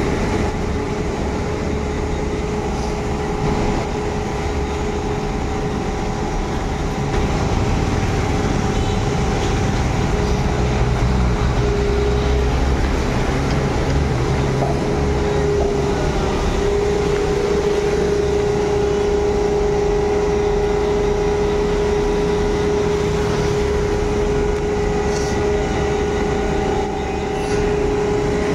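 Sany SYG5230THB 370C-8 truck-mounted concrete boom pump running as its boom unfolds: engine rumble under a steady hydraulic whine.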